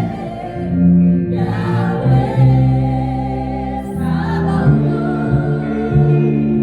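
Gospel choir singing in harmony with instrumental backing, voices holding long notes and moving between chords.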